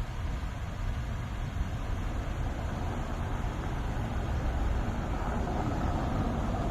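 Road traffic: a steady mix of vehicle engines and tyre noise, growing somewhat louder in the second half as traffic draws nearer.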